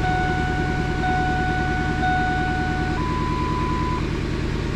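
Turbocharged 5.4-litre V8 of a 2003 Ford F-150 idling on a freshly loaded custom tune. Over it the dash chime beeps three times, once a second, then gives one higher-pitched tone.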